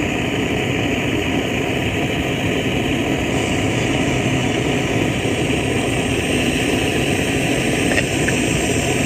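A steady engine-like running noise, even in loudness throughout, like an engine idling.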